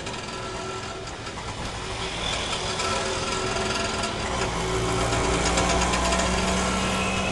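Traffic braking at a light: vehicles slowing with thin squealing tones from braking over the noise of running engines. The level rises, and a low engine drone builds about halfway through.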